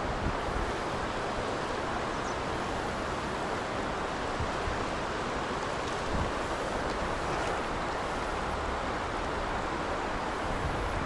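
River current rushing over rocky shallows, a steady rushing noise, with light wind buffeting the microphone.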